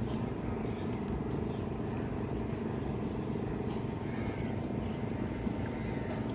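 A steady low engine drone, like a motorboat's, runs under faint splashing and dripping as a wet nylon gill net is hauled by hand out of the water into a wooden canoe.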